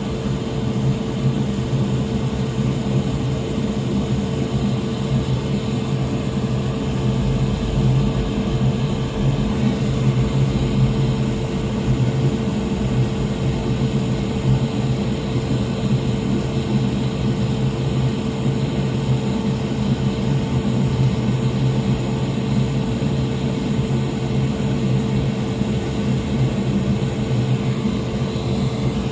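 A small electric blower on a soldering bench running steadily, with a constant whirring hum that does not change in pitch or level.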